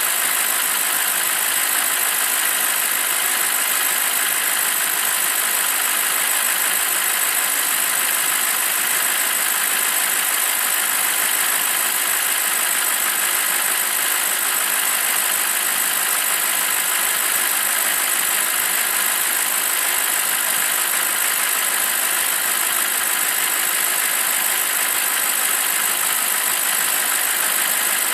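BMW 745i E65's N62 4.4-litre V8 idling steadily after a cold start.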